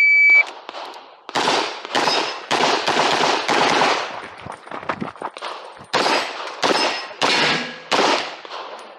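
An electronic shot timer gives one short, high, steady beep to start the run, then a semi-automatic pistol fires a long string of shots in quick succession, many of them in close pairs, each followed by a short echo.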